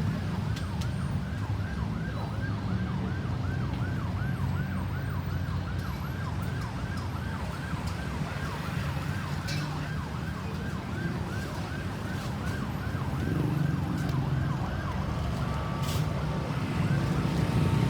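Ambulance electronic siren in a fast yelp, about three quick pitch sweeps a second, over a low engine and traffic rumble. Near the end the yelp stops and a steadier siren tone takes over.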